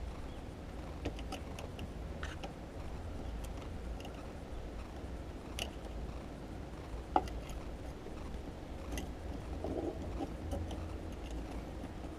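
Scattered light clicks and taps of plastic wiring-harness connectors being handled, with one sharper click about seven seconds in, over a low steady hum.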